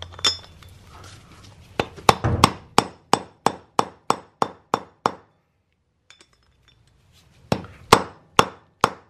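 Mallet striking a seal-driver tool, driving the outer seal into a wheel hub: a steady run of about a dozen sharp metallic strikes, roughly three a second, then a pause and four more strikes near the end.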